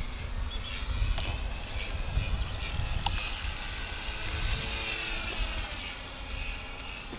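Electric motor and propeller of a radio-controlled P-51 Mustang model flying past, a thin whine that drifts up and down in pitch and fades a little toward the end.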